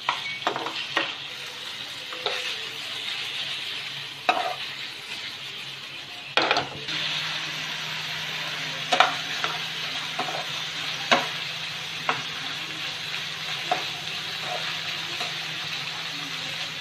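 Chicken pieces sizzling in a hot non-stick pan, being dry-fried until their water cooks off, with a steady frying hiss. A perforated steel spatula stirs them, scraping and knocking against the pan every second or two.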